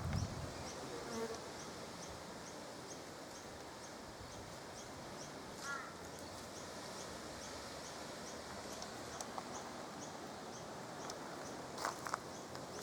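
Insects chirping outdoors: a short high chirp repeats evenly about twice a second over a steady background hum. A brief lower call comes about six seconds in.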